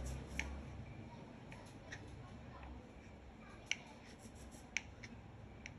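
Kitchen knife cutting a roll of soft potato dough into pieces on a wooden cutting board: about six faint, sharp clicks as the blade meets the board, irregularly spaced, the loudest a little past the middle.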